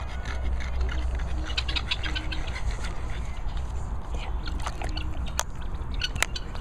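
Chickens clucking in the background over a steady low wind rumble on the microphone, with a few sharp clicks near the end.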